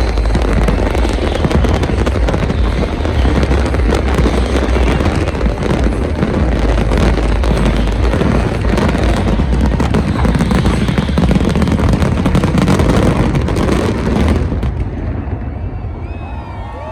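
A dense fireworks barrage of rapid crackling and booming shell bursts, the closing barrage of a fireworks show. The bursts stop about fourteen seconds in, leaving a fading rumble.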